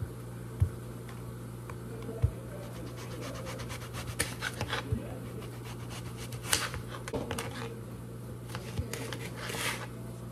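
Kitchen knife slicing zucchini on a plastic cutting board: a series of cuts and light taps of the blade on the board, with two sharper knocks near the start. A steady low hum runs underneath.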